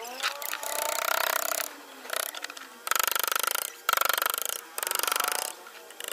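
Wood-carving chisel cutting and scraping through a hardwood panel in a series of rasping strokes, each lasting about half a second to a second, with short pauses between.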